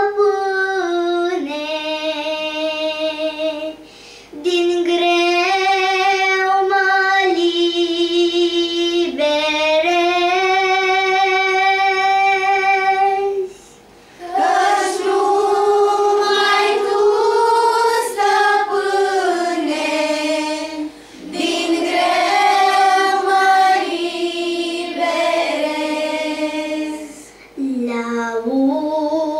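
A young girl singing a slow Romanian hymn solo, with a children's choir joining in about halfway through, the singing growing fuller with several voices together. There are short breaks between phrases.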